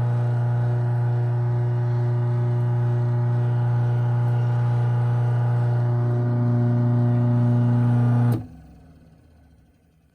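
Craftsman half-horsepower chain-drive garage door opener running as it closes the door, a steady motor hum that shifts slightly about six seconds in. The motor cuts off suddenly near the end as the door finishes closing, and the sound dies away.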